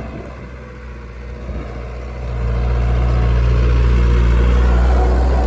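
A motor vehicle's engine running with a steady low hum, getting louder a little over two seconds in and staying loud.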